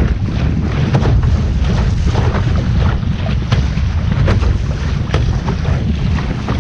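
Wind buffeting the microphone aboard a sailing boat under way, a heavy steady rumble, with frequent short splashes and slaps of water through it.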